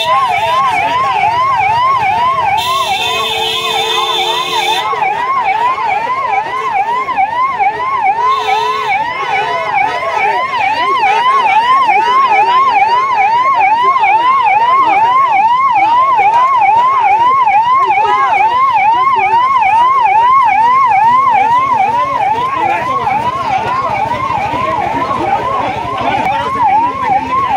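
Emergency-vehicle siren in a fast yelp, its pitch sweeping up and down about two to three times a second without a break. Two sirens overlap at the start.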